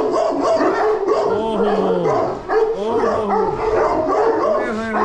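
Several large Central Asian Shepherd (Alabai) guardian dogs barking at once, deep booming barks overlapping without pause.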